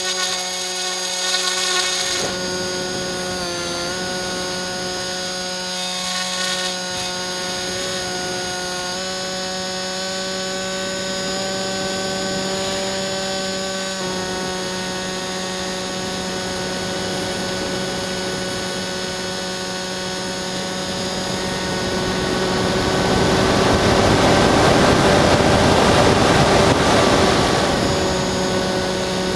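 Bixler 2 RC foam plane's electric brushless motor and pusher propeller, heard from a camera on board: a steady whine that steps in pitch a few times as the throttle changes. Wind noise over the airframe swells for several seconds near the end.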